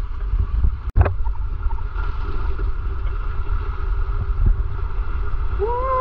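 Wind rumbling on the camera microphone over open water, with a faint steady hum running under it. There is a brief dropout and click about a second in.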